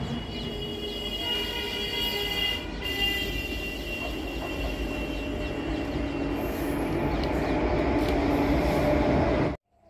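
Train passing on the rails: steady wheel noise with thin, high squealing tones over it. It grows louder toward the end, then cuts off suddenly.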